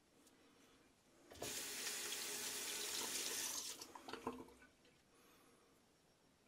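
Water tap running into a sink for about two and a half seconds, starting a little over a second in, then shut off, with a few splashes as it stops.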